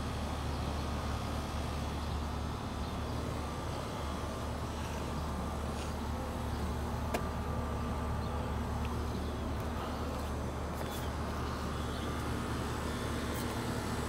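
Outdoor air-conditioning and refrigeration condensing units running: a steady low compressor hum with fan noise over it and a faint tick about seven seconds in.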